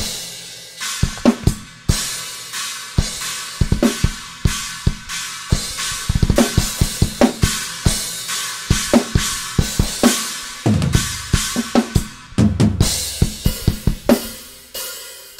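Raw, unmixed metal drum kit recording, comped from several takes, playing back: kick, snare and toms under a steady wash of cymbals. Near the end come two fast runs of bass drum, and then the last hits ring out.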